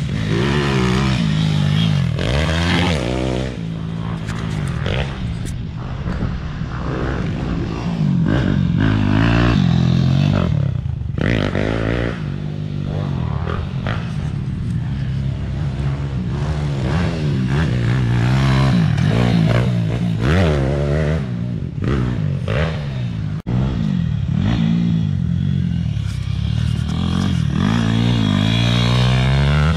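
Pit bike engine revving up and falling back again and again as the rider accelerates and brakes around a dirt track, with scraping and clatter from the ride.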